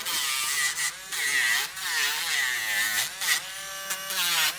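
Electric dog nail grinder running, its buzzing pitch dipping and recovering repeatedly as the spinning drum is pressed against the dog's nails and lifted off.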